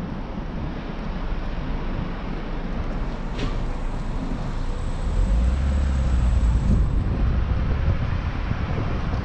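Vehicle driving along a city street: steady road noise with wind rumbling on the microphone, the low rumble growing stronger about five seconds in.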